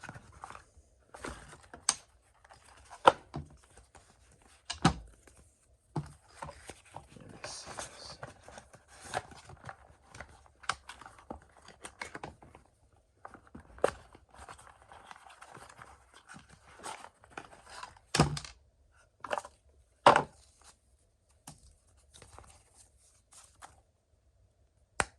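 Hands opening a cardboard knife box and handling its contents: rustling and tearing of paper and packaging, with repeated sharp knocks and taps, the loudest about three seconds in and twice near eighteen and twenty seconds.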